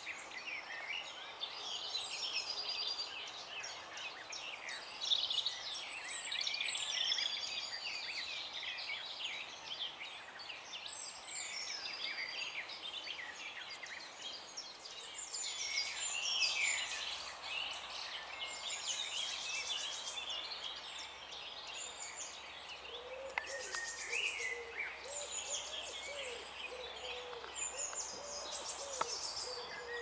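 Mixed birdsong from several birds, many quick chirps and whistled phrases overlapping. A lower call repeats over the last third.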